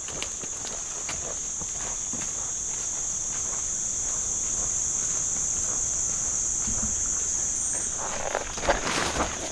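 Steady high-pitched drone of tropical forest insects, with footsteps near the end.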